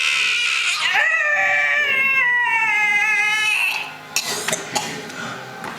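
A child's voice holding one long, high-pitched wail for about three seconds, slowly falling in pitch, followed by a few light knocks.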